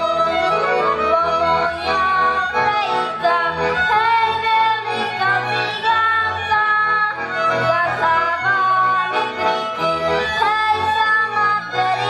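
A boy singing a Rusyn folk song over a folk band's instrumental accompaniment.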